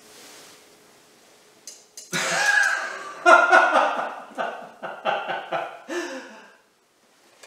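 A man laughing loudly in a long run of bursts, about three a second, starting about two seconds in and dying away near the end.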